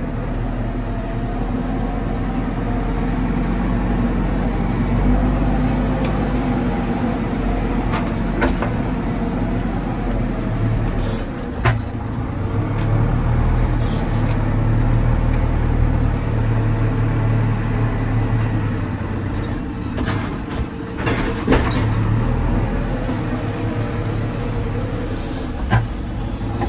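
JCB 4CX backhoe loader's diesel engine working under load as the front bucket loads a truck, its speed rising and falling, with a few sharp knocks and clanks along the way.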